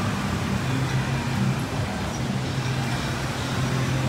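Street traffic noise from cars and motorbikes, with the low bass notes of distant amplified music underneath.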